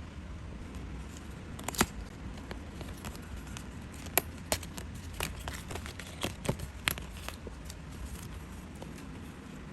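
Paper and craft tools being handled on a work surface: a scattering of small sharp clicks and taps, most of them between about two and seven seconds in, over a low steady hum.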